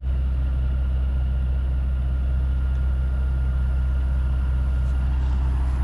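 A heavy engine idling with a steady, unchanging low rumble.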